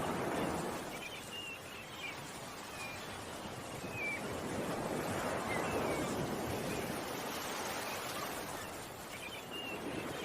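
Ocean waves washing in and out, swelling and fading every few seconds, with small birds chirping briefly and repeatedly over the surf.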